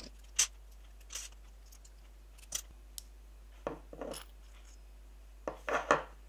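Small metal flip-stop parts (a lock nut, brass washers and the steel flipping piece) clicking and clinking against each other as they are taken apart by hand. A sharp click about half a second in, a few scattered clicks after it, and a short cluster near the end.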